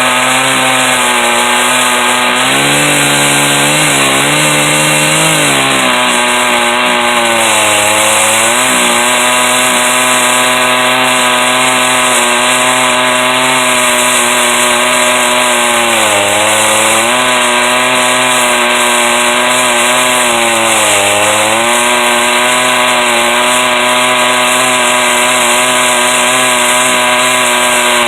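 Stihl 038 two-stroke chainsaw running at full throttle in an Alaskan chainsaw mill, ripping lengthwise through a log. Its engine note dips briefly a few times and recovers.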